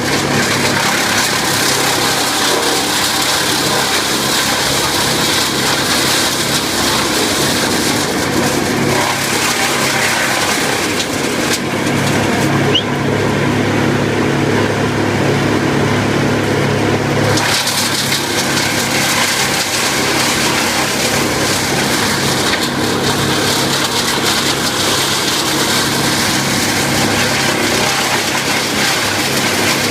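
Wood chipper running: a steady engine drone under a rough, grinding hiss of material being chipped. The hiss drops away for several seconds in the middle, leaving mostly the engine, then comes back.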